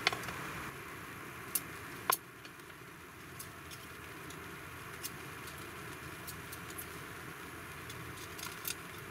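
Knife carving a round wooden stick down to a square section: faint scraping as the blade shaves the wood, with sharp clicks of cuts and chips, the loudest just after the start and about two seconds in, then a few lighter ticks.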